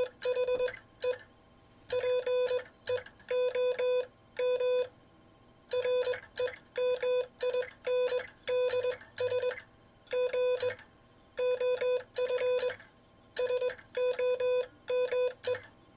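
Morse code sent on a Vibroplex bug (semi-automatic key), heard as a steady mid-pitched beeping tone keyed on and off in dots and dashes, grouped into characters and words with short gaps between. It is sent in the classic bug style, with some of the timing a little uneven.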